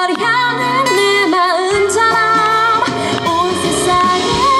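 A woman singing live into a handheld microphone over band accompaniment, her voice carrying a held, wavering melody line.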